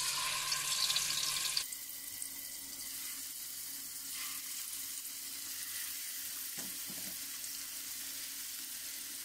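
Masala-marinated chicken pieces sizzling as they go into hot sunflower oil in a non-stick wok. The sizzle is loudest for the first second and a half as the first piece hits the oil, then settles to a steady, quieter hiss.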